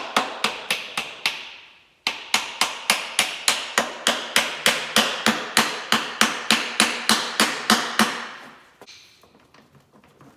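A hammer striking repeatedly at an even pace of about four blows a second. A short pause comes about two seconds in, and the hammering stops near the end.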